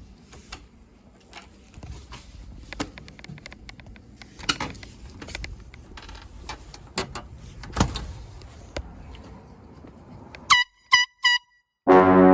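Scattered clicks and knocks over a low background, then three short high beeps, and about a second from the end a loud air horn blast starts: one deep, buzzy tone, still sounding at the end.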